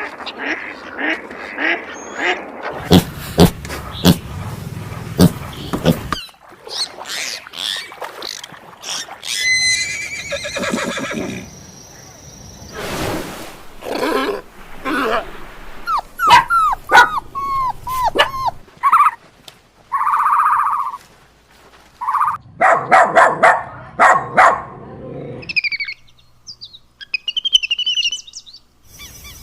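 Farm animal calls, one kind after another, with the sound changing abruptly every few seconds.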